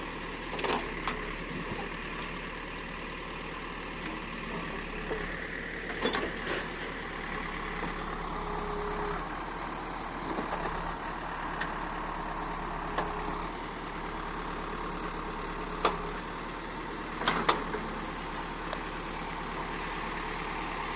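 A vehicle engine running steadily, with a few sharp knocks, two of them close together near the end.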